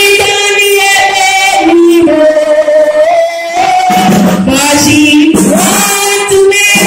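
A woman singing a worship song into a handheld microphone, in long held notes that step from pitch to pitch.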